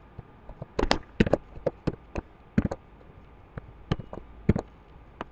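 Computer keyboard and mouse clicking: a dozen or so sharp, irregular clicks, bunched in the first half with a few more near the end, while a line of code is copied and pasted.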